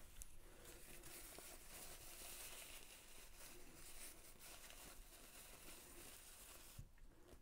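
Near silence with faint rustling and a few light clicks of small objects being handled, and a small knock near the end.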